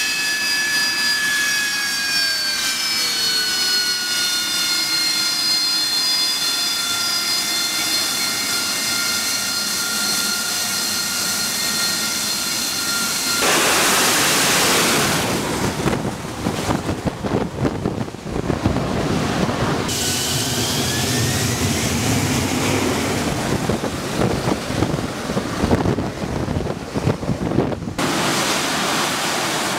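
AV-8B Harrier's Pegasus turbofan running: a high whine of several tones that slide slowly lower for the first dozen seconds, then a sudden loud rushing roar. After that comes a choppy, gusty stretch, a whine rising again, and the roar once more near the end.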